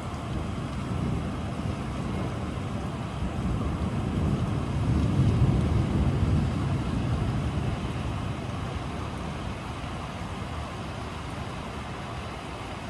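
Steady rain with a low rumble of distant rolling thunder that builds to its loudest about halfway through and slowly dies away.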